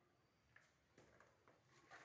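Near silence in a small room, with a few faint soft taps about every half second.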